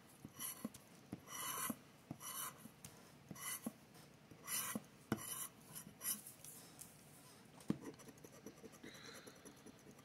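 Scratcher tool scraping the latex coating off a scratch-off lottery ticket: a series of short, quiet scraping strokes, growing fainter after about six seconds.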